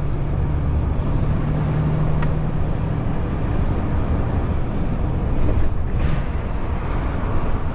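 Heavy recovery truck's diesel engine running on the move, with steady road noise, heard from inside the cab. A low engine note holds steady, then eases off about three and a half seconds in.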